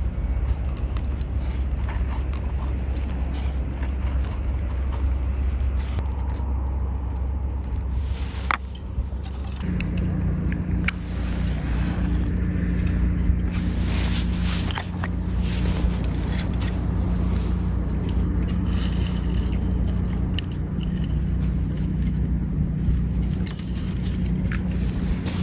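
A knife blade scraping along a split of dry wood, carving curled shavings for a feather stick. After about ten seconds this gives way to a small fire of wood shavings and kindling, with scattered sharp crackles and ticks. A steady low rumble runs underneath.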